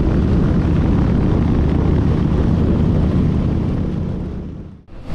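Motorcycle engine and wind noise while riding on the open road, a steady roar that fades out near the end, followed by a short whoosh.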